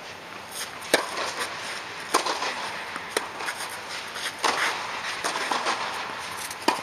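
Tennis rally: a ball struck back and forth with rackets, sharp strikes coming roughly once a second, each ringing on in the echo of an inflatable tennis dome.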